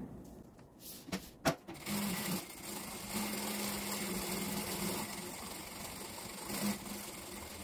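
Industrial straight-stitch sewing machine running at a steady speed, stitching around the edge of a lining and facing laid together. A couple of short clicks come about a second in, then the motor and needle run steadily for about five seconds.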